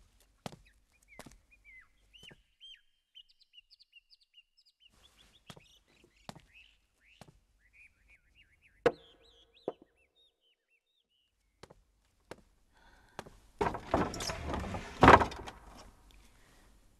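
Birds chirping in the background with scattered light knocks and clicks, one of them ringing briefly about nine seconds in. Then, from about 13 seconds, a loud burst of rustling noise that peaks near 15 seconds.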